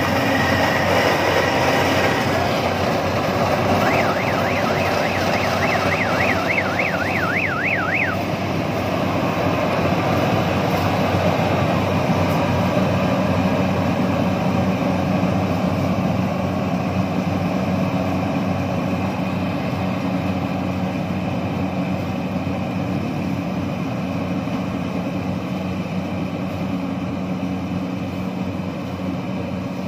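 Small crawler rice combine harvester running as it cuts and threshes rice, a steady mechanical din that slowly fades as the machine moves away. From about four to eight seconds in, a warbling electronic tone rises and falls about three times a second.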